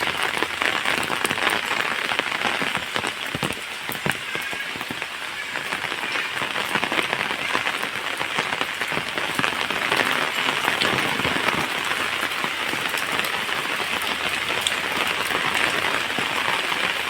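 Steady rain falling, with many separate drops heard close by as small ticks over an even hiss.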